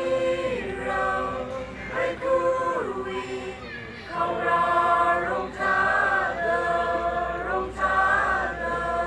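A group of voices singing together in a choir, without instruments, holding long notes in short phrases.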